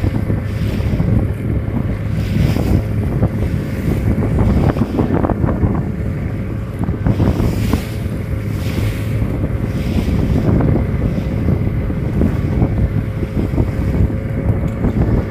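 A small fishing boat's motor running steadily with a low hum, under wind buffeting the microphone and water sloshing against the hull.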